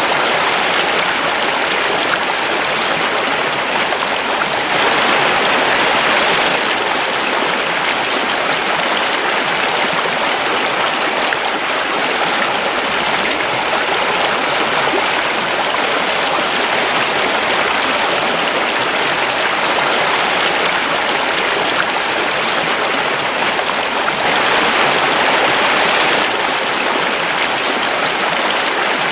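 A forest river flowing over rocks, a steady rushing of water that swells slightly louder twice.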